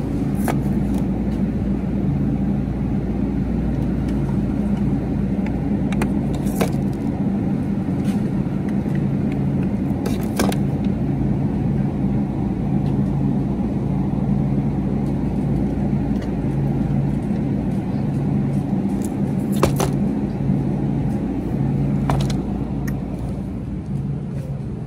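Steady low hum and rumble of a store's refrigerated aisle, with about five short sharp clacks as plastic yogurt cups are dropped into a plastic shopping basket and the basket is handled.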